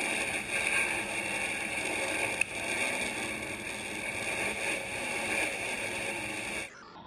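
Airboat engine and propeller running, a loud steady rushing noise, with one sharp snap about two and a half seconds in. The noise cuts off abruptly near the end.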